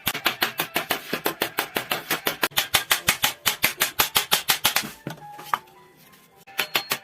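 Rapid, even hammer taps on sheet metal, about six or seven blows a second, as a steamer-pot rack is shaped by hand. The taps pause about five seconds in and start again near the end.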